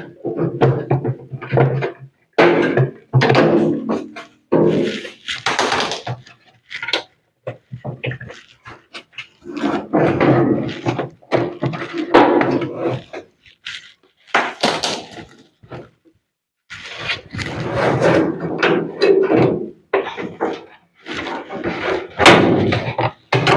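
Repeated thuds and clunks as the drum assembly of a top-load washing machine is worked loose and lifted out of its cabinet, in irregular bursts with short pauses between.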